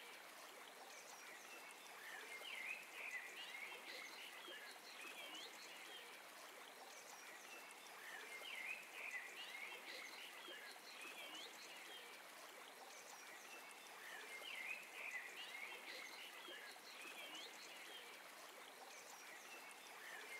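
Faint birdsong: clusters of short chirps and twitters come back about every six seconds over a steady hiss.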